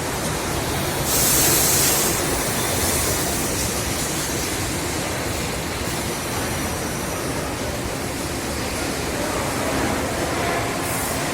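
Steady machinery noise on a chest freezer production line. About a second in there is a loud hiss lasting about a second, with fainter hisses later.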